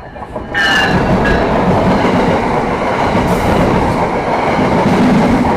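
Train passing at close range: the noise of its wheels and cars rises suddenly about half a second in, with brief high tones at the onset, then holds steady and loud.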